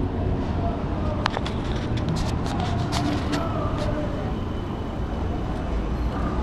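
Bicycle rolling over brick paving: a steady low rumble, with a cluster of sharp clicks and rattles from about one to four seconds in. The rumble grows stronger near the end.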